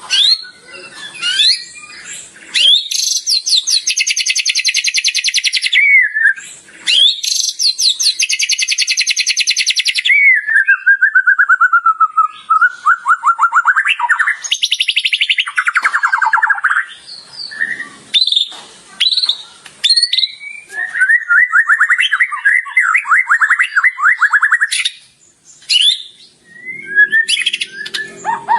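White-rumped shama (murai batu) singing a loud, varied song of whistles and mimicked phrases. It includes two long, very rapid trills a few seconds in, a falling trill about ten seconds in, and another rapid run past twenty seconds.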